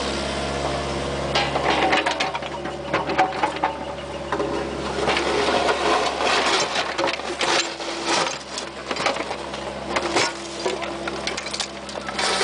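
Bobcat 430 compact excavator at work: its diesel engine runs steadily under the clatter and scrape of the steel bucket digging into broken asphalt and dirt, with sharp knocks, the loudest about three seconds in and another near ten seconds.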